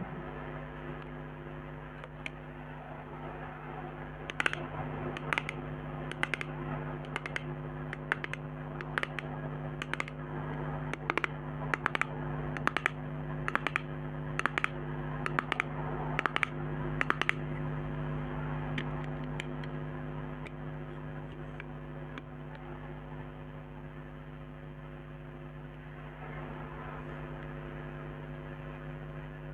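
Fingernails tapping on cosmetic containers: a run of sharp clicks at about two a second that stops about two-thirds of the way in, over a steady electrical hum and hiss from an old microphone.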